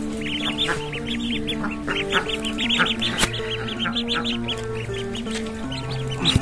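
A brood of ducklings peeping constantly, many short high calls overlapping several times a second, over background music with slow held notes.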